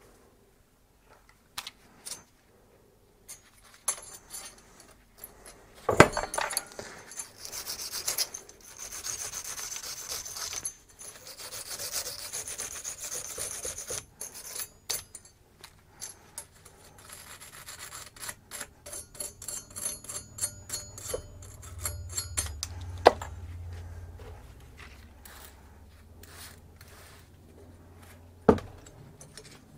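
Wire brush scrubbing steel brake pad hardware clamped in a vice, in long stretches of rapid rasping strokes, cleaning the clips. Sharp metallic clicks come between the stretches, the loudest about six seconds in and near the end.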